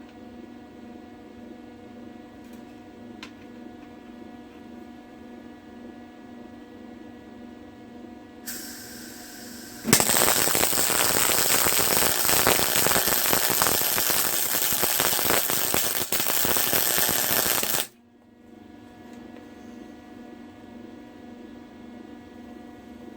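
Arc welding bead crackling loudly and steadily for about eight seconds, with a brief break near the end, then stopping abruptly. A short hiss comes just before the arc strikes. A steady electrical hum sits underneath throughout.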